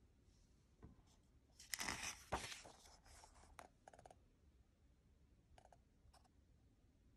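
A page of a paperback picture book being turned: a burst of paper rustling about two seconds in, followed by a few fainter rustles as the page is smoothed down.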